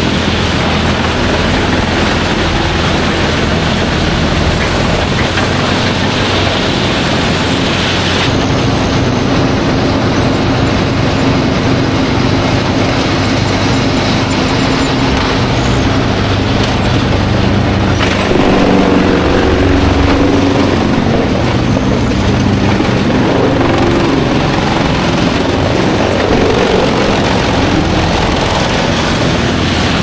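525 hp whole-tree wood chipper running at full throttle while chipping logs, its heavy diesel engine and cutting head making a loud, steady noise as chips blow out of the discharge chute. The sound shifts about 8 seconds in and again at about 18 seconds, where it is loudest for a few seconds.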